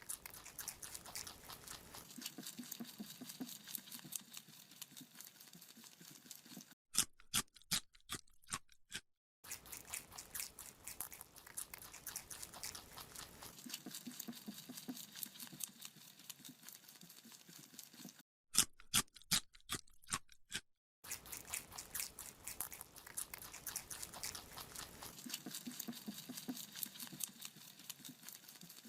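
A rabbit chewing a carrot: a steady run of fast, small crunching bites. Twice, about seven and eighteen seconds in, there are a couple of seconds of louder, sharper crunches.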